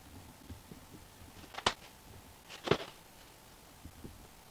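Two sharp clicks about a second apart, with a few faint ticks between, as an X-Acto hobby knife cuts and pries around the punched centre hole of a clock face board.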